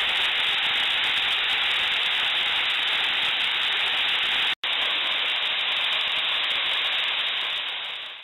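Small waterfall splashing into a rock pool: a steady rush of falling water. It cuts out for an instant about halfway and fades out near the end.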